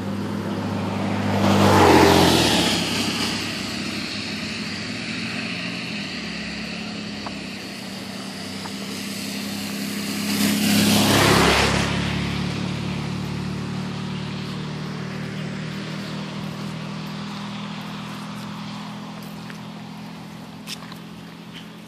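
Two cars pass on a wet road about nine seconds apart, each swelling up and fading as a hiss of tyres on wet pavement over engine noise. A steady low engine hum runs underneath.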